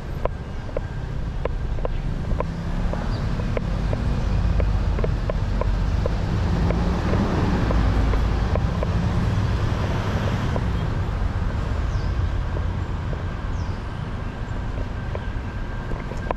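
City street traffic: a low engine rumble swells through the middle and then fades, as a vehicle passes. Regular footsteps tick about twice a second under it.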